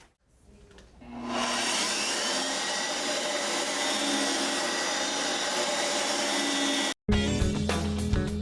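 Vacuum cleaner switched on: the motor spins up over about a second, runs steadily with a whine, then cuts off suddenly near the end.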